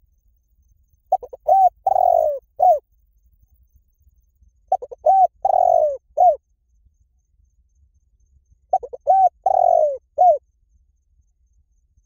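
Spotted dove cooing: three call phrases about four seconds apart, each a quick run of short coos, one longer coo and a short closing note.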